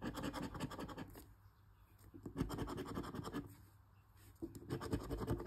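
Scratch-off lottery ticket being scratched in three short bouts of rapid rubbing strokes, with brief pauses between them.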